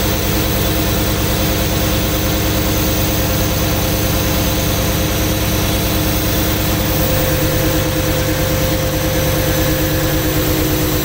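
1995 GMC Suburban's 5.7-litre TBI small-block V8 idling steadily with a valve cover off and the rocker arms exposed. The last rocker arm has just been tightened until its clacking stopped and is being given its final three-quarter turn of preload.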